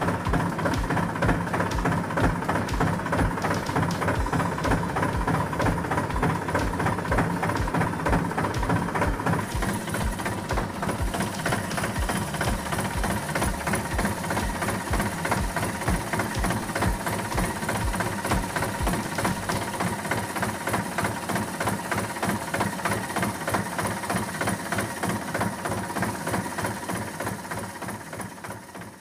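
Tractor engine idling with a steady, even knocking beat. It fades away near the end.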